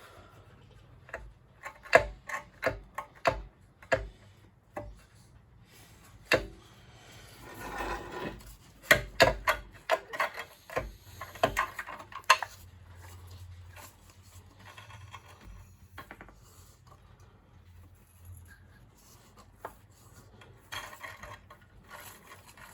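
Scattered clicks, light knocks and rubbing of metal parts and tools being handled on a small engine, with a quick run of knocks about nine to twelve seconds in.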